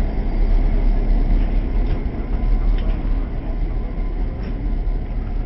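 EMD FP7 diesel locomotive running and pulling away on the adjacent track, a steady low rumble with no break.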